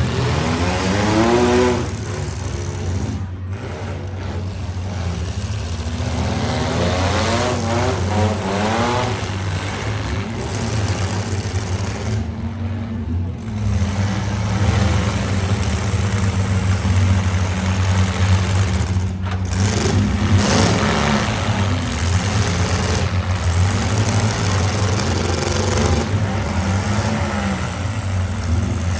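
Several demolition derby cars running at once, with a constant low exhaust rumble and engines repeatedly revving up and down, most clearly near the start, about a third of the way in and again past the middle.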